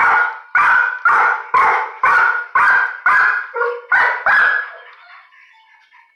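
A dog barking over and over, about two barks a second, with the barking stopping a little after four seconds in.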